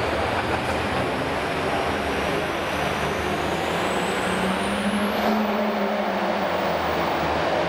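Turbocharged diesel engine of a Super Farm pulling tractor running loud at the line. From about three seconds in, the turbo whine climbs steeply in pitch as the engine comes up in revs.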